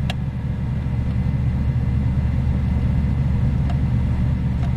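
Steady low drone of running rooftop HVAC equipment, with a few light clicks.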